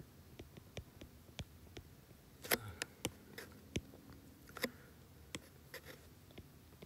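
Stylus tips tapping on a tablet screen: a scatter of irregular light taps and clicks, the loudest about two and a half seconds in and again a little after four and a half seconds.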